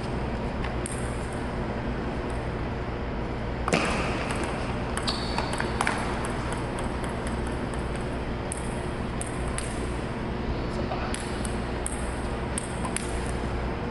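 Table tennis ball clicking back and forth off paddles and table in a steady warm-up rally, with one louder knock just under four seconds in. A steady low hum lies underneath.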